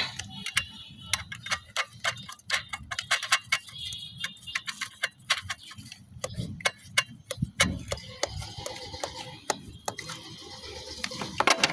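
Wrench working a nut and washer down onto a mounting bolt: many quick, irregular clicks and taps.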